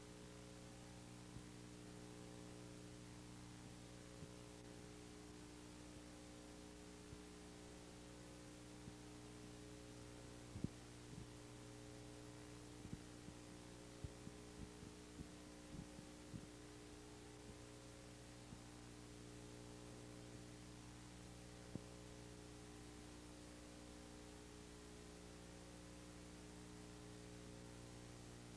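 Near silence: a steady electrical hum on an otherwise silent audio track, with a few faint scattered clicks, most of them between about ten and seventeen seconds in.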